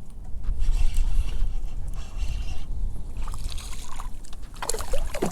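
Water sloshing against a kayak's hull under a steady low rumble, with a few short sharp sounds near the end.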